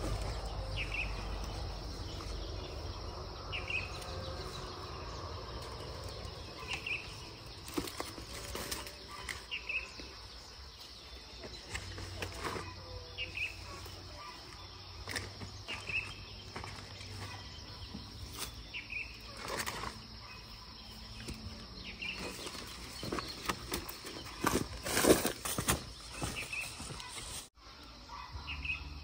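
Ripe papayas being picked up and set into a woven basket: rustling and dull knocks, with a cluster of louder knocks near the end. A bird repeats a short high call about every three seconds throughout.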